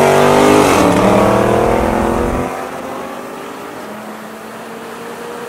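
Tuned Audi RS3's turbocharged five-cylinder at full throttle, rising in pitch with an upshift about a second in. About two and a half seconds in the driver lifts off and the engine drops to a quieter, steady cruise.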